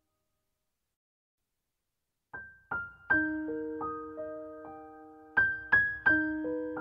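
Silence, then background piano music begins a little over two seconds in: single struck notes that ring and fade, in a slow, gentle melody.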